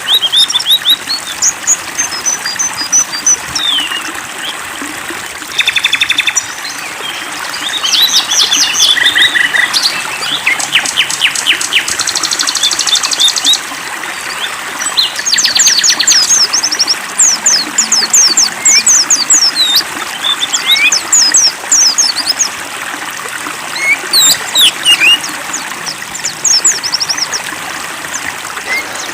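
Several songbirds chirping and singing in quick trills and short downward-sweeping calls, over a steady trickle of running water.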